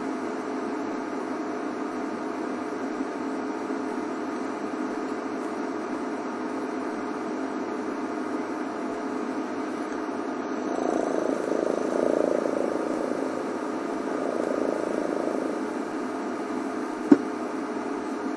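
Steady hum of an idling engine, swelling a little for a few seconds past the middle, with one sharp click near the end.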